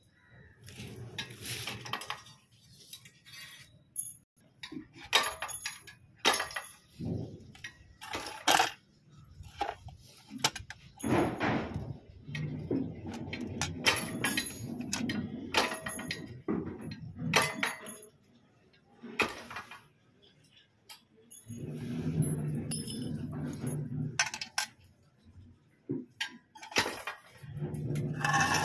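Repeated sharp metallic clinks and clanks as thin steel wire rods are handled and one is bent into a right angle in a rusty steel lever-and-pin bending jig. There are a few stretches of lower, rougher noise.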